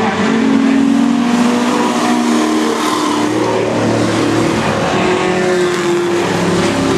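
Engines of racing sport trucks running hard around a short oval, several engine notes at once that rise and fall slightly as the trucks lap.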